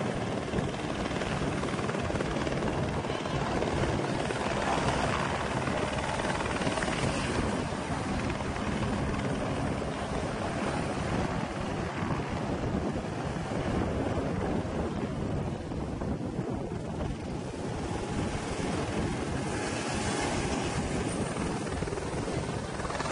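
Helicopter hovering low over the surf, its rotor and engine noise loud and steady throughout.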